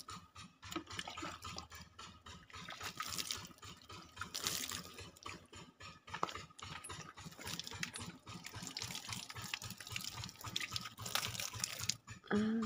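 Water trickling and splashing in wet garden furrows, coming and going in irregular bursts. A short voice cuts in near the end.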